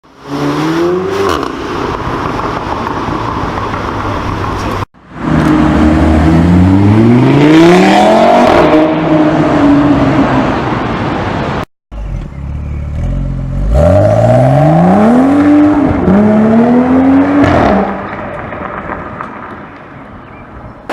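Performance cars with dual-clutch (DSG) gearboxes accelerating hard, the engine pitch climbing and then dropping at each upshift with the short exhaust 'fart' of the DSG shift. Three separate clips, cut about five and twelve seconds in; the last one fades off near the end.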